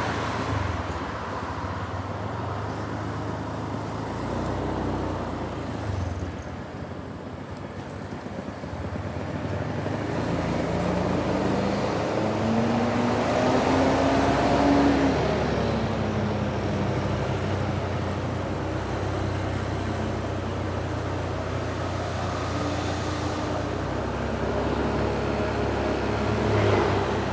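Roadside traffic with a heavy vehicle's engine running. About halfway through, a vehicle approaches and passes, its engine note rising and then dropping.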